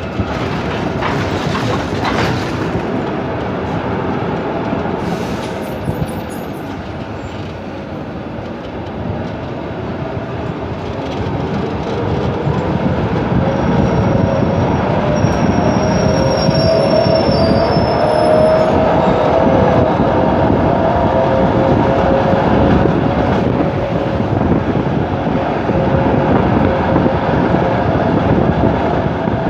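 Tram trailer (ZET type 701) rolling on the rails with a steady rumble. From about twelve seconds in the wheels squeal, wavering tones that grow louder as the sound gets busier, the squeal of steel wheels grinding through a curve.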